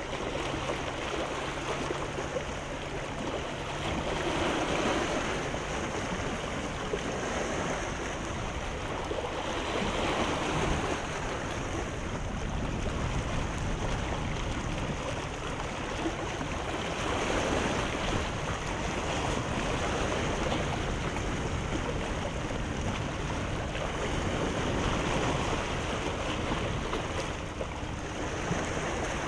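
Sea waves washing in on the shore, the wash swelling and ebbing about every six to seven seconds over a steady hiss of surf, with some wind.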